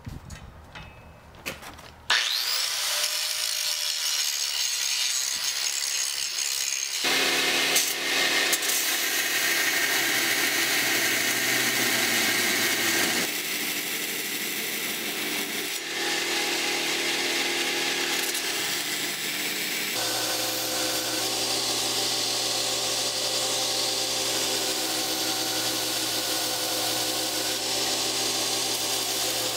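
Belt grinder running with a steel knife blade pressed against the abrasive belt, grinding loudly and steadily; the sound starts suddenly about two seconds in and changes in tone several times. This is the rough grinding of a freshly forged Damascus Bowie blade.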